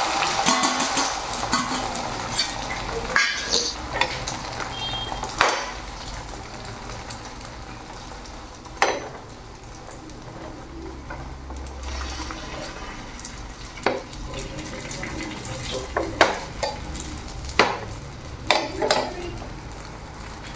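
Omelette egg batter sizzling in a hot nonstick frying pan as it is poured in, loud at first and settling to a quieter steady sizzle after several seconds. Scattered sharp clinks of metal utensils, a fork on a steel bowl and a spatula on the pan, sound over it.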